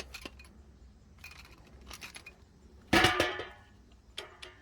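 Chevy Equinox starter motor being handled: a few light clicks, then a loud metallic clank about three seconds in that rings briefly. It is the sound of broken, loose parts shifting inside the starter, a starter that is shot.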